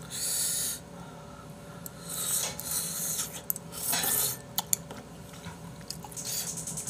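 A person slurping spoonfuls of potato sujebi (hand-torn dough soup) broth while eating: four short hissing slurps spread through, with a few sharp clicks in between.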